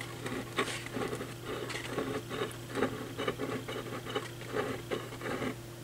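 Light scratchy rustles and soft taps, about two or three a second, from hands gripping and shifting a large woofer's frame. A steady low hum sits underneath.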